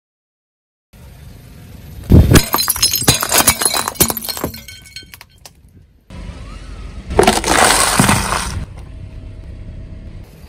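A car tyre rolls onto painted ceramic plates and shatters them: a loud burst of cracking with pieces clinking and skittering on the asphalt. After that a tyre flattens a cardboard tube of potato chips, with a second loud burst of crunching.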